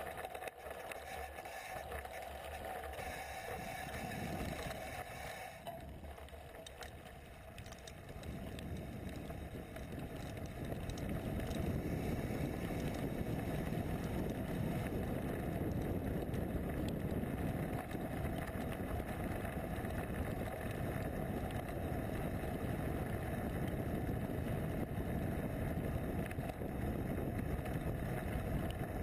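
Mountain bike riding noise: tyres rolling over dirt and gravel with frame and drivetrain rattle, mixed with wind on the action camera's microphone. The rumble grows louder and heavier about ten seconds in, once the bike is on the gravel road.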